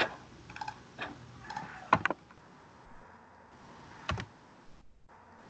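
Irregular clicks at a computer: several in the first two seconds, then a close double click about four seconds in, over a faint steady background hiss.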